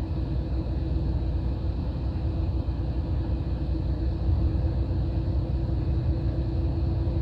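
Steady low rumble of a highway coach's engine and road noise heard inside the passenger cabin, with a faint constant hum over it.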